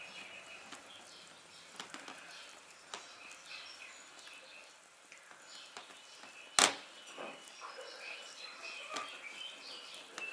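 Fork stirring pizza dough batter in a ceramic bowl: faint scraping and light clinks, with one sharp knock about six and a half seconds in.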